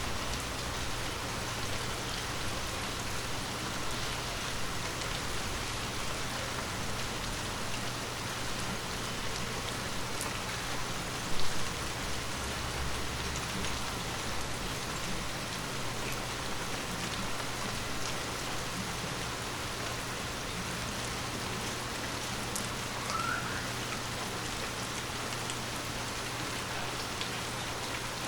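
Light rain falling steadily: a dense, even hiss with scattered ticks of individual drops. A brief louder thump comes about eleven seconds in.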